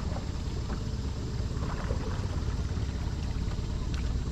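Small boat's motor running steadily, a low rumble, with a few light knocks over it.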